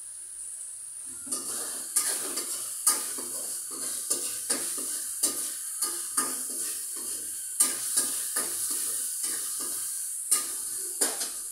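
Stir-frying: a spatula stirring, scraping and clinking against a pan in repeated strokes starting about a second in, over a steady sizzle.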